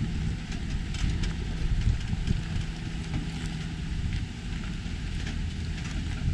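Pickup truck's engine running at low speed as it backs a boat trailer down a launch ramp, with wind buffeting the microphone.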